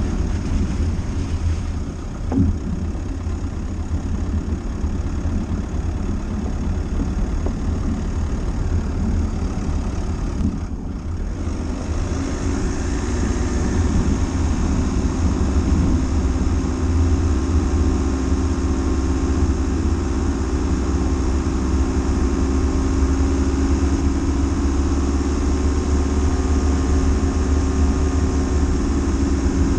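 Dacia Duster driving off-road: steady engine and tyre rumble, with a single knock about two seconds in and a steadier engine drone from about twelve seconds on.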